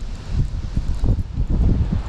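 Wind buffeting the microphone: an uneven low rumble that rises and falls, with a light rustle over it.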